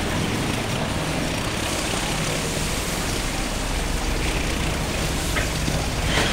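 Steady low hum and rumble on a station platform beside a standing passenger train, with a couple of faint clicks near the end.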